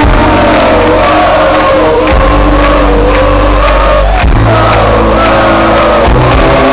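Live rock band playing loud through a concert PA, heard from within the audience: sustained bass notes under a held, wavering sung melody, with crowd noise mixed in.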